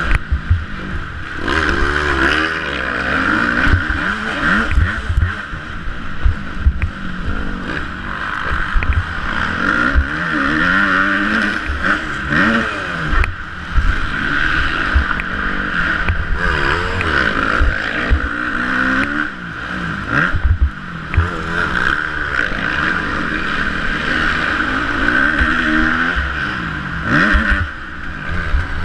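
Yamaha YZ250F four-stroke single-cylinder dirt bike engine, heard on board, revving hard and repeatedly rising and falling in pitch through the gears, with frequent short low thumps of wind buffeting and hits from jumps and bumps.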